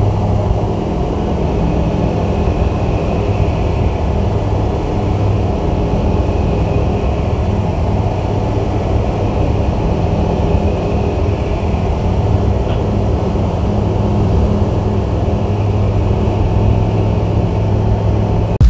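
Rotax 912 Xtra flat-four aircraft engine and propeller of a light bush plane running steadily in cruise flight, a constant low drone.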